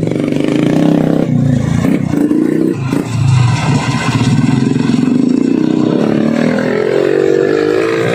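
Small dirt-bike engine revving up and down as it labours through mud under a heavy sack of grain, its pitch climbing over the last couple of seconds.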